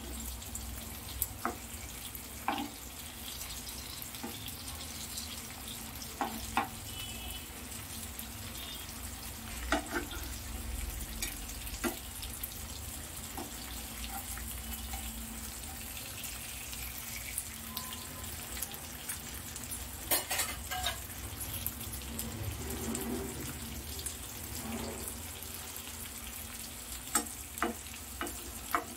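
Masala-coated rohu fish pieces shallow-frying in oil in a nonstick pan, a steady sizzle. A metal spatula and spoon scrape and clink against the pan at intervals as the pieces are turned.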